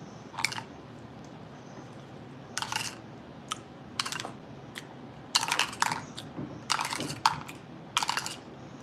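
Small hard objects being handled, giving about a dozen short, crisp clicks and rustles at irregular intervals.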